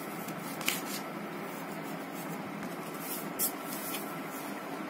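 Plastic set square, pencil and hands sliding and scraping on drawing paper: two brief swishes over a steady background hiss.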